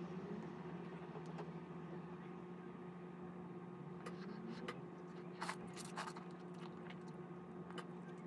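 Eating ramen from a ceramic bowl with chopsticks and a spoon: a few short clicks of the utensils and noodles from about the middle on, over a steady hum.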